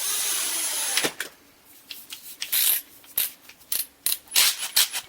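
A small power tool runs for about a second, starting suddenly with a thin high whine on top, then a string of short, sharp scraping and rustling noises.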